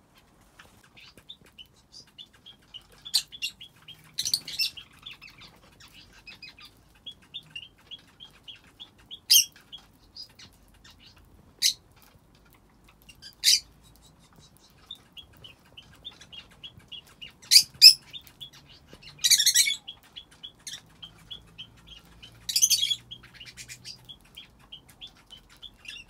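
Canaries chirping: a steady string of short, high chirps, about three a second, broken now and then by brief, louder, sharper calls.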